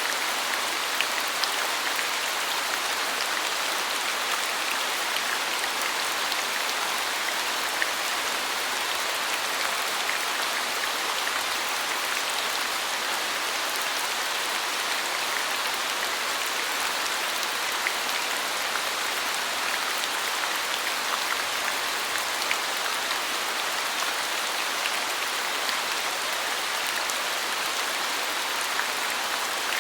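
Steady rain falling, a dense even hiss of drops with scattered sharper drop ticks.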